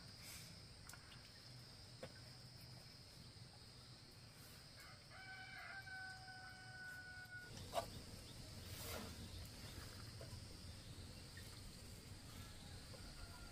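A rooster crowing once, faintly, one long call of about two and a half seconds starting about five seconds in, over a steady high insect buzz. A single sharp click comes near the end of the crow.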